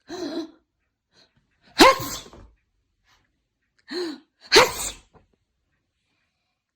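A woman sneezing twice, about two and a half seconds apart. Each sneeze starts with a short drawn-in 'ah' and ends in a loud, sharp 'choo'.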